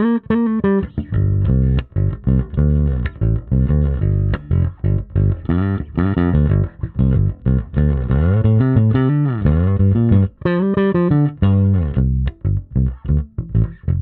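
Vanzandt PBV-R2 electric bass played amplified with its tone knob turned fully up: a busy line of plucked notes with slides in pitch about halfway through, turning to short, clipped notes near the end.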